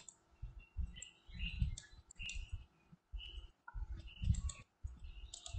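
Computer mouse clicks at an irregular pace, with soft low bumps of the mouse and hand on the desk.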